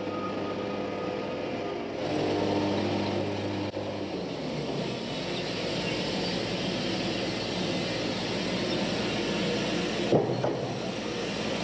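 An engine runs steadily. Its pitch shifts about two seconds in and again around four seconds, and there is one sharp knock near the end.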